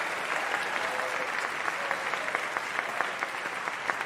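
Concert audience applauding: a dense, even patter of clapping that thins toward the end into more distinct individual claps.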